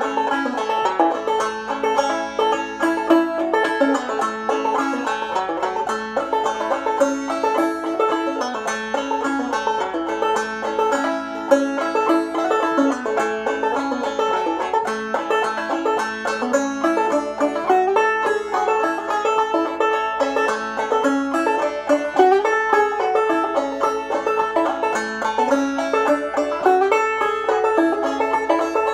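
1903 Fairbanks Whyte Laydie #2 open-back five-string banjo played clawhammer style: a steady, unbroken run of struck and plucked notes in an old-time fiddle-tune melody. It is tuned to open G (gDGBD) and capoed up two frets, so it sounds in A.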